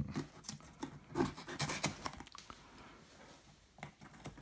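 A thin metal blade slitting packing tape along the seam of a cardboard box: scratching and rubbing of the blade against tape and cardboard, with light clicks, busiest in the first two seconds and then quieter.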